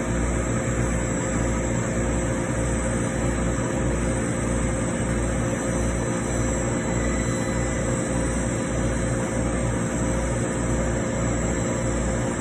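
Trotec Speedy 360 80-watt CO2 laser engraver running while it cuts plywood: a steady mechanical hum and hiss with a low throb about one and a half times a second.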